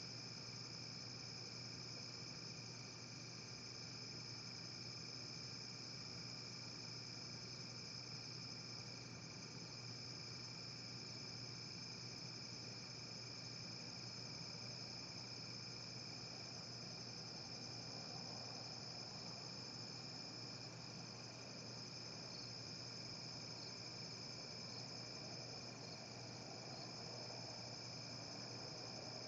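Crickets trilling steadily in a high continuous chorus, with a faint low steady hum underneath.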